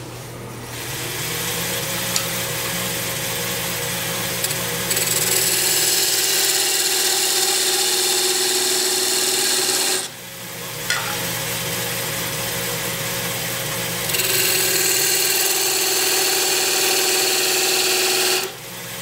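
Wood lathe running as two parting cuts are made into a spinning wooden spindle, one with a narrow 1/16-inch parting tool and one with a 1/8-inch parting tool: a steady hissing, scraping cut over the lathe's hum. Each cut lasts about eight seconds and grows louder as it goes deeper, with a short break between them near the middle.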